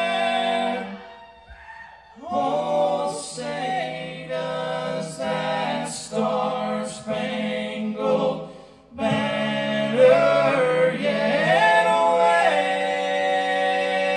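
Background music: an a cappella vocal group singing in close harmony. The music opens on a held chord, breaks off about a second in, resumes with moving sung phrases, dips briefly near the middle, and ends on long held chords.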